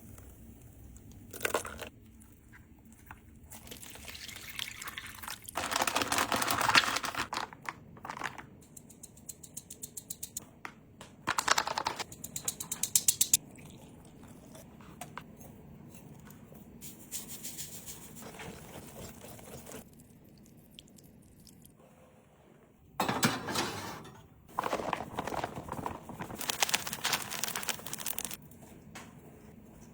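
Kitchen food-prep sounds: several bursts of liquid pouring and splashing, with crinkling and rapid clicking from ingredients and utensils being handled.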